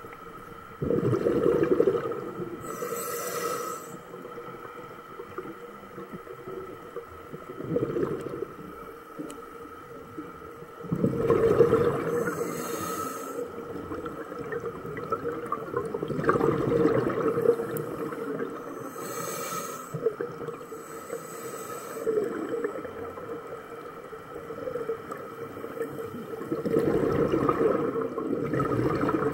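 Scuba diver breathing through a regulator underwater: a few hissing inhalations and gurgling bursts of exhaled bubbles, with a faint steady tone underneath.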